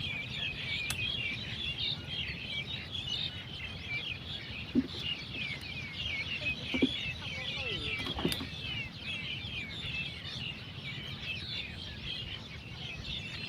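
A flock of small birds chirping busily and without pause, over a steady low rumble, with three short knocks: about five seconds in, about seven seconds in and a second later.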